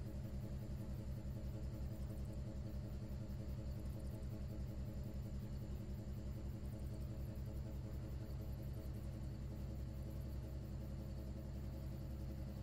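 A river cruise ship's diesel engine running steadily: an even low rumble with a fine, rapid pulse.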